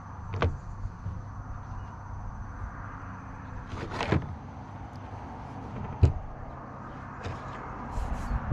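Handling noise: a few knocks and clunks as things are picked up and set down on a hard surface, the loudest about six seconds in, over a steady low hum.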